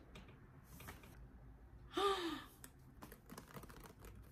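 Faint clicks and taps of items and packaging being handled inside a cardboard box, coming thicker in the second half. A woman makes a brief voiced sound about two seconds in.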